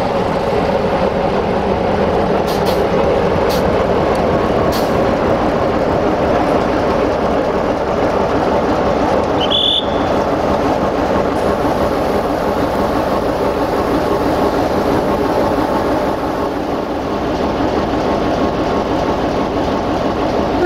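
LDH1250 diesel-hydraulic shunting locomotive running steadily as it moves slowly past on shunting duty, with a short high-pitched squeak about ten seconds in.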